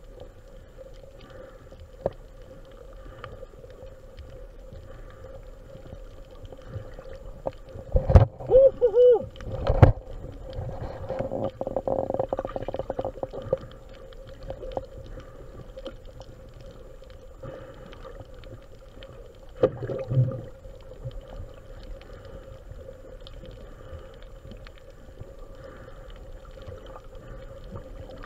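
Muffled underwater sound through a camera housing, a steady hum under it. Two bouts of bubbling gurgles stand out, one about eight seconds in running for several seconds and a shorter one near twenty seconds, typical of a scuba diver's exhaled bubbles from the regulator.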